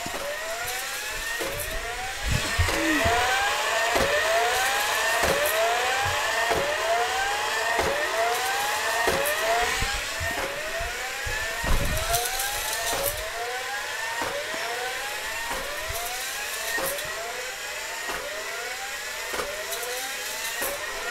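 Small battery-powered K'NEX motor whining as it drives a ride model, its pitch gliding up and dropping back over and over, about one and a half times a second, with scattered clicks and knocks.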